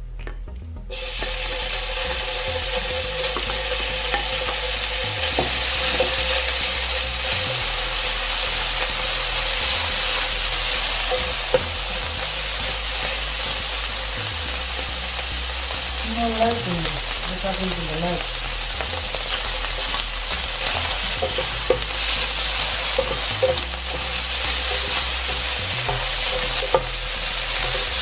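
Sliced Scotch fillet steak sizzling in hot oil in a non-stick electric skillet, the frying starting suddenly about a second in and running on as a steady hiss. A slotted spatula stirs and scrapes the pan, with small clicks.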